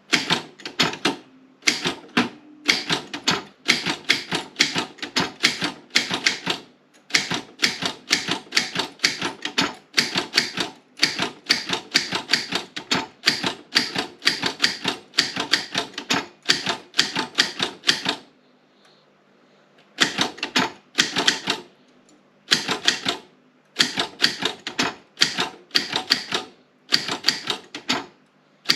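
Optima M16 manual typewriter being typed on: quick runs of sharp key strikes, several a second, broken by short pauses, with a longer pause a little over halfway through.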